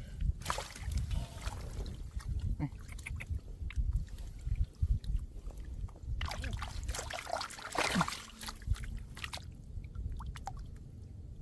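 Irregular splashing and sloshing of shallow muddy water over a steady low rumble, with the loudest bursts about half a second in, around two and a half seconds in, and again around seven to eight seconds in.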